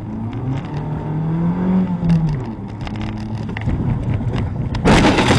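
Car engine revving up and then easing off as it drives, heard from inside the car. Near the end comes a sudden, loud burst of noise, the loudest sound here.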